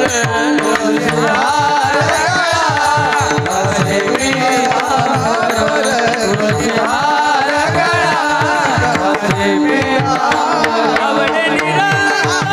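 Devotional kirtan music: a voice singing a winding melody over a steady held drone, with quick hand-drum strokes whose low bass pitch slides down after each stroke.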